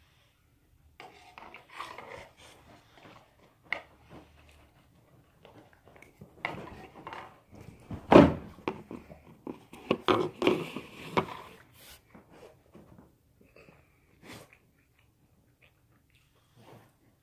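A small dog eating noodles from a plastic bowl held up to it, with irregular eating noises and knocks of the bowl, loudest about eight seconds in.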